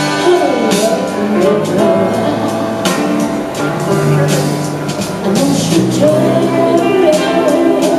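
Music with long held notes and a gliding melody line.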